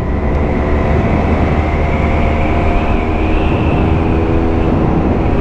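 KTM RC 125's single-cylinder four-stroke engine pulling the bike along at steady speed, its note rising slightly about halfway through and then holding. The exhaust is an Akrapovic with its baffle fitted.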